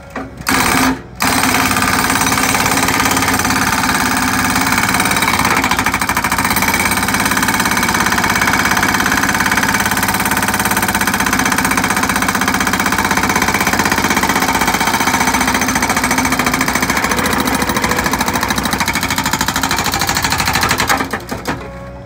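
Hydraulic breaker on a compact track loader hammering concrete foundation slab with rapid, steady blows. It starts about half a second in, stops briefly, then runs on until it cuts off near the end.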